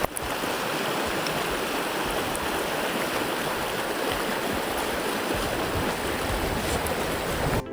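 Stream water rushing steadily, an even unbroken wash of noise that cuts in and out abruptly.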